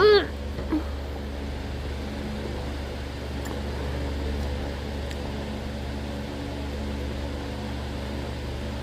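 Steady low mechanical hum, like a running fan or household appliance. Right at the start there is a short, loud, high-pitched call that rises and falls, and a fainter one just under a second in.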